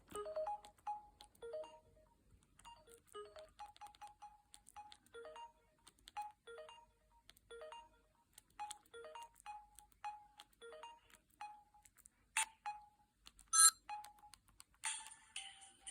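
Samsung GT-C5212i mobile phone ringtone playing: a tune of short electronic notes, with two sharp, louder hits near the end. A different, brighter tone begins about a second before the end.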